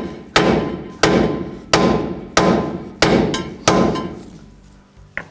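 Six hammer blows about two-thirds of a second apart on a 2008 Chevy Silverado's lower control arm. Each is a sharp metal strike that rings briefly. They are hammering the old lower ball joint out of the arm, and the joint is starting to move.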